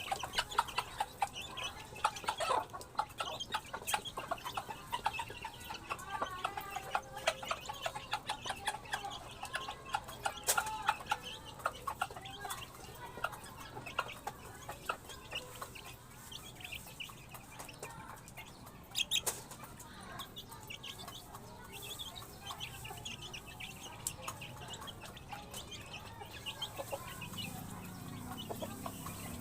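A flock of chickens clucking while they feed, with many quick ticks of beaks pecking at the feed, busiest in the first half. A low steady hum comes in near the end.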